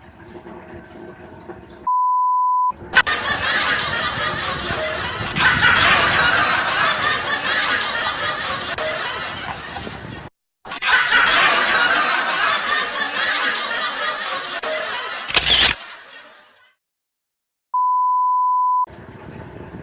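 Meme sound-effect montage. A steady one-second 1 kHz censor beep sounds about two seconds in. Two long stretches of loud, dense hissy noise follow, split by a short break, then a second censor beep comes near the end.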